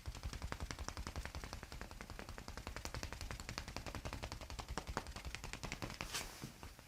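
Rapid percussive tapping on a person's back during a massage: an even run of sharp strikes, about ten a second.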